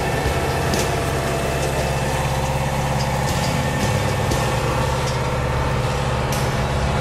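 Combine harvester engine running steadily, heard from on board the machine.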